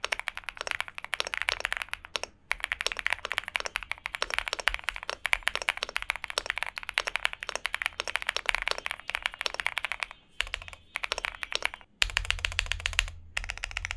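Fast typing on a gasket-mounted 75% mechanical keyboard (Velocifiretech Infi75) with stock linear switches and double-shot PBT keycaps, a dense run of keystrokes broken by a few short pauses. Described as a deep-sounding board.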